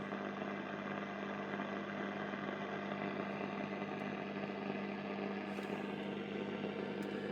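1951 Radionette Menuett valve radio just switched on, untuned and without an antenna, putting out a steady low hum with hiss and static from its speaker.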